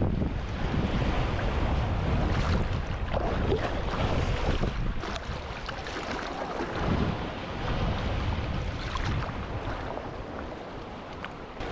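Ocean swell and surf washing and surging, with wind rumbling on the microphone.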